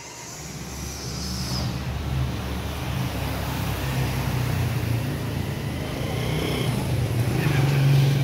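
A motor vehicle's engine running on the street, growing steadily louder as it draws near and loudest near the end.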